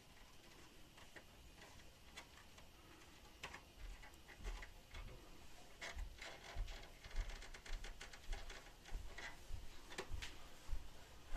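Scattered light clicks and ticks of small tools and plastic laptop parts being handled, sparse at first and coming thick and fast in the second half.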